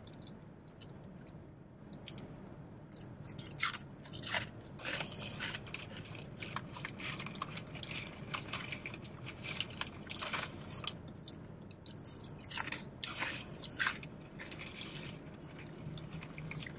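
Close-up chewing of crunchy potato chips: irregular crisp crunches and mouth sounds, over a steady low hum.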